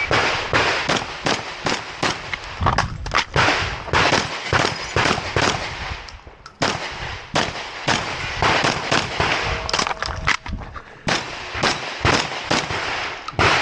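A shotgun fired in a rapid string of shots during an IPSC stage, several shots a second, with a short break about six seconds in while the shooter reloads.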